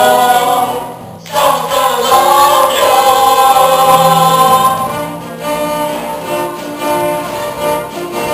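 A stage-musical ensemble of voices singing long held notes over an accompaniment, with a brief dip about a second in. About five seconds in, the music grows quieter.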